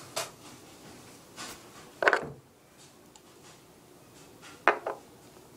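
Handling noises from a small plastic nail polish bottle and other small items: a few sharp clicks and knocks, the loudest about two seconds in, with a quick double click near the end.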